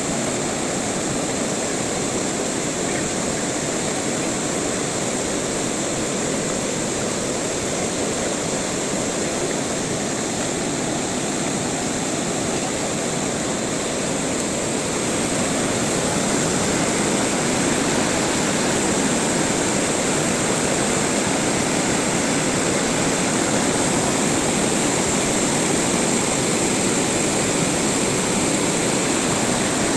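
River water rushing steadily, growing a little louder about halfway through.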